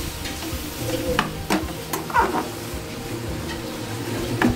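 Metal spatula stirring onions, tomatoes and green chillies frying in a metal kadai: a steady sizzle broken by several sharp clinks and scrapes of the spatula against the pan.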